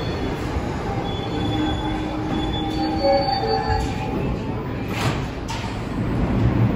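An R142 subway train standing at the platform, with a steady low rumble and hum and faint high squealing tones that come and go. A couple of short knocks come about five seconds in.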